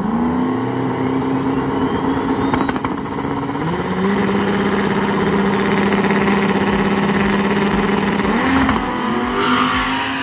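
Drag car engine running hard at high revs, its note shifting pitch about 4 s in and again near 8.5 s, with a thin whine climbing over the first few seconds.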